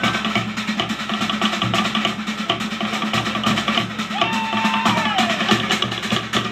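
Fast, driving Polynesian drumming: wooden log drums beat a rapid, even rhythm over a deeper drum pulse. About four seconds in, a long sliding call rises and falls over the drums.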